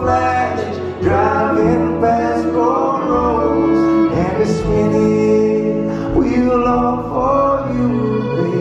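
Live bluegrass band playing: fiddle over acoustic guitar, banjo and upright bass, with no break in the music.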